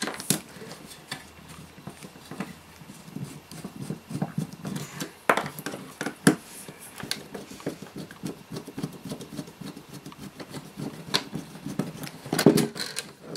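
A screwdriver turning screws out of a steel mounting bracket, with small scraping and clicking of the blade and metal parts handled on the table. A few sharper metal clicks stand out, and there is a quick cluster near the end.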